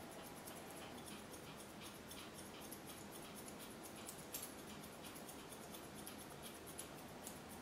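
Grooming scissors snipping through a Pomeranian's thick, fluffy coat: light, quick snips, a few a second at an uneven pace, one a little sharper about four seconds in.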